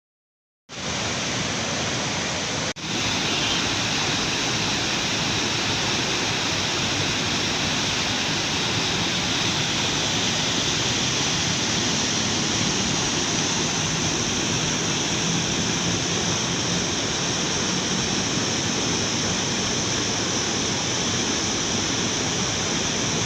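Steady rush of flowing river water, a loud, even hiss that starts after a brief silence and breaks off for an instant a few seconds in.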